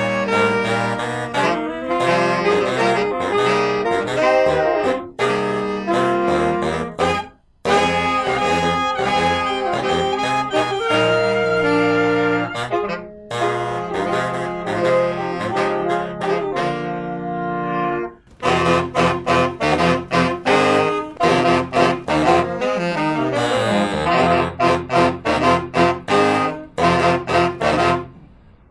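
Saxophone quintet (soprano, alto, tenor and baritone saxophones) playing an up-tempo arrangement together. The playing stops dead for a moment about seven seconds in and again after about eighteen seconds, then comes back as short, punchy repeated chords.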